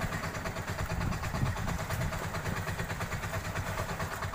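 A fishing boat's engine idling steadily with a fast low chug, over the wash of waves against the rocks.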